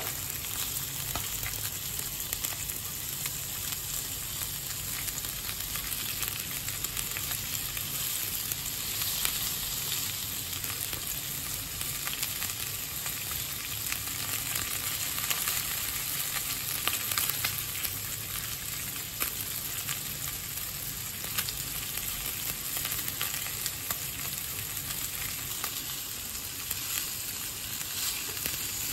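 Lamb cutlets frying in a cast-iron skillet: a steady sizzling hiss scattered with many small crackling pops.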